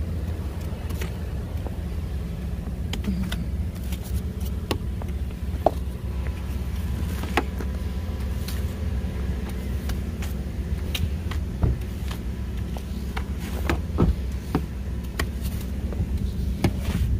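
A snow brush sweeping and scraping snow off a car's windows and body, with irregular short clicks and knocks, over a steady low engine hum.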